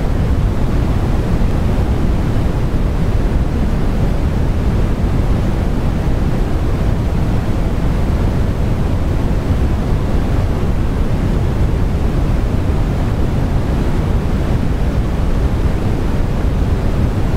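Steady rushing background noise, strongest in the low end, unchanging throughout, with no separate clicks or knocks standing out.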